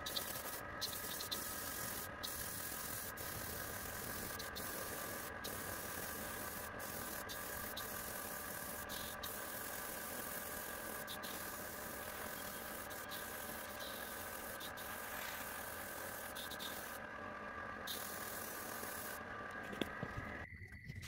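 Airbrush compressor running with a steady hum while the airbrush sprays paint with a faint hiss. The hum stops near the end.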